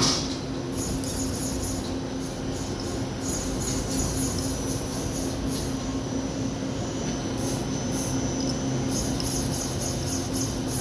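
Daewoo Puma CNC lathe running a machining cycle: a steady mechanical hum with a constant tone, broken by patches of high, hissing noise that come and go.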